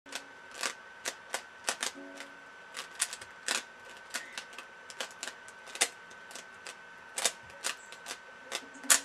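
3x3x3 Rubik's cube being turned by hand: sharp, irregular clicks of its layers snapping round, over a faint steady high whine.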